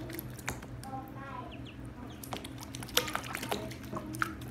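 Ducklings peeping in short falling cheeps, mixed with water splashing and sharp taps as one paddles in a plastic tub and clambers out over the rim; the loudest tap comes about three seconds in. A steady low hum runs underneath.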